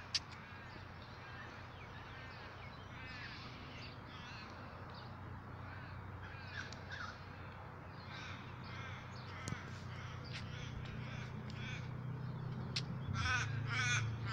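Birds calling outdoors: many short, harsh, arching cries repeating throughout, growing louder and more crowded near the end, over a steady low rumble. A few sharp clicks come through, one just after the start.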